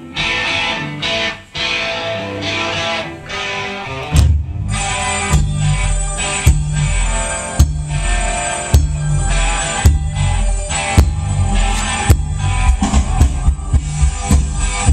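Recorded music played loud through a home stereo with a Velodyne ULD-18 18-inch subwoofer, its driver fitted with a new two-stage fiber surround in place of the rotted foam, being tested on bass-heavy music. Electric guitar at first; about four seconds in a deep bass line and drums come in, with regular hard beats.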